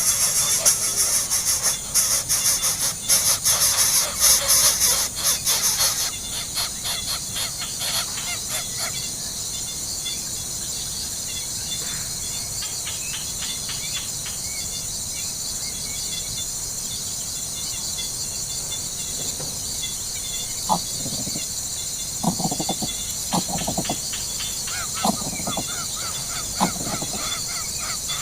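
Bird calls outdoors: about six short pitched calls in the last third, over a steady high-pitched hiss; the first few seconds are louder and busier.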